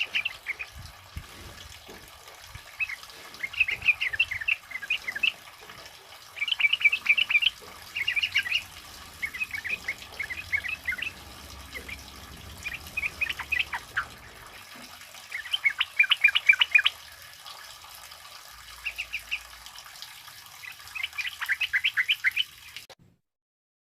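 Yellow-vented bulbuls (trucukan) singing in repeated bursts of quick chattering notes every second or two, over a steady hiss of heavy rain. The sound cuts off abruptly near the end.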